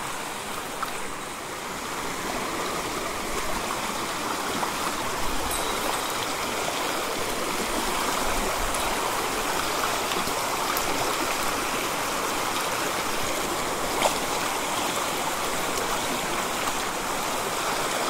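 Small mountain stream rushing over rocks: a steady hiss of flowing water that grows somewhat louder over the first few seconds, then holds.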